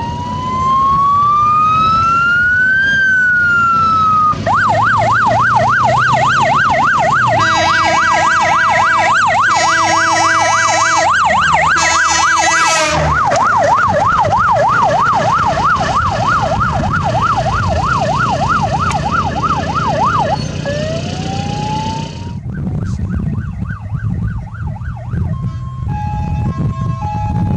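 Ambulance electronic siren cycling: a slow wail rising and falling, then a fast yelp, with several blasts of a train horn fitted to the Mercedes Sprinter ambulance sounding over it about halfway through. Near the end another short wail, then faster sweeps and an alternating two-tone pattern.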